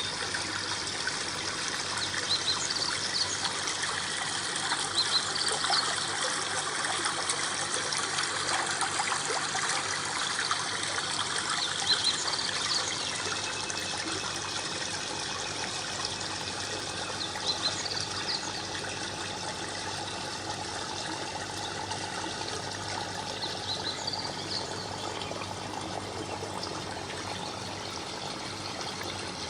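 Small waterfall in a tabletop aquaterrarium running steadily, water trickling and splashing, with a few brief higher plinks every few seconds.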